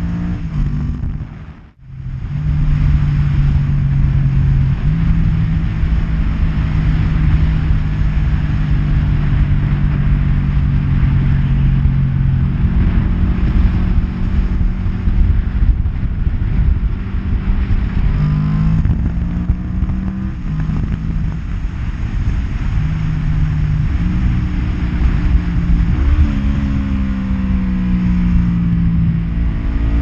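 1992 Yamaha Vmax 1200's V4 engine through Delkevic slip-on exhausts, running under way on the road: a steady drone through the first half, then its pitch rising and falling several times as the throttle is opened and closed. The sound drops out almost completely for a moment about two seconds in.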